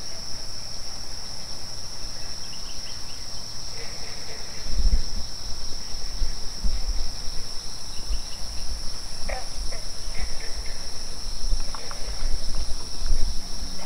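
Steady chorus of night insects, crickets trilling continuously at a high pitch, with an uneven low rumble joining in from about four seconds in.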